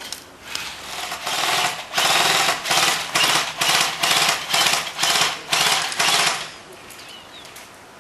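Airsoft gun firing on full auto in a string of short rattling bursts, about half a second apart, lasting about five seconds before stopping.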